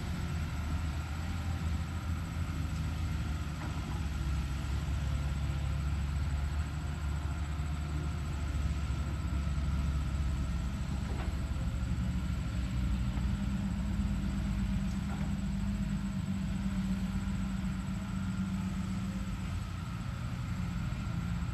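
Hyundai HX210HD excavator's diesel engine running with a steady low rumble. A higher drone comes in about halfway through and eases off near the end.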